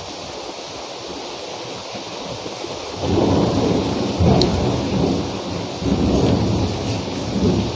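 Very heavy rain pouring steadily, with a long rumble of thunder rolling in about three seconds in, swelling and fading.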